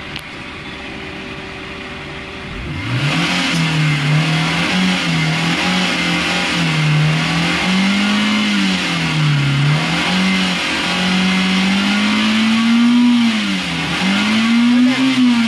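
Maruti Suzuki Eeco's four-cylinder engine idling, then about two and a half seconds in it is revved up and held at raised revs, the engine speed rising and falling repeatedly. The revs load the AC compressor for a gauge pressure test, and the mechanic blames the faulty readings on the compressor.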